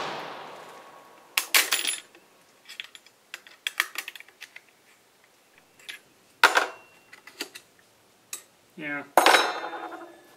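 A rifle shot's echo fades out, then the action of an Austrian M95 straight-pull rifle is worked by hand in a string of sharp metal clicks and clanks, as the spent case and the sticking en-bloc clip are pulled out. The clip sticks because it is bent.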